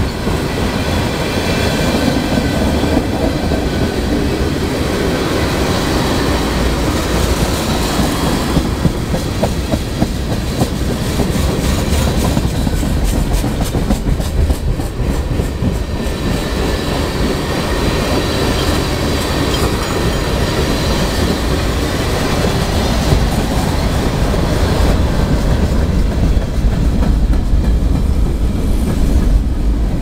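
CSX freight train cars rolling past close by, their steel wheels clicking steadily over the rail joints, with wind buffeting the microphone.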